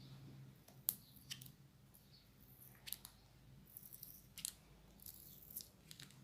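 Near silence with faint, scattered clicks and light handling rustles over a low steady hum; the sharpest click comes about a second in.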